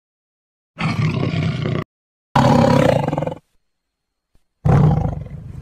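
Three roars from a big cat, each about a second long, starting and stopping abruptly with dead silence between them; the last one trails off more slowly.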